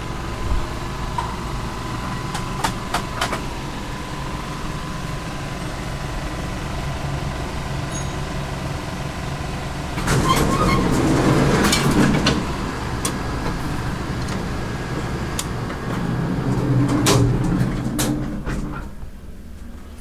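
Otis traction elevator car in operation: a steady hum with scattered clicks, and two louder stretches of rumbling mechanical noise, about ten seconds in and again near the end.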